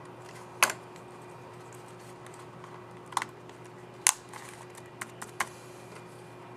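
Plastic laptop keycap clicks on a Dell Latitude 5400 keyboard: about six short, sharp clicks, spaced irregularly, including a quick cluster near the middle, over a faint steady hum.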